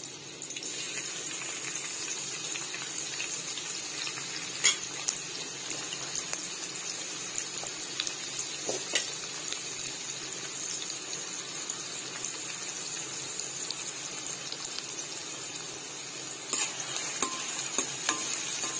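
Chopped onions dropped into hot oil in a kadhai, which then sizzles steadily as they fry, with a few sharp clicks. Near the end a spatula stirs them, and the sizzle gets louder and busier, with scraping and knocks against the pan.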